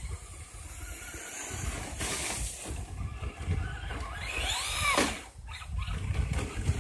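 Traxxas Slash RC short-course truck driving on dirt, its electric motor whining higher as it speeds up, then dropping away sharply about five seconds in.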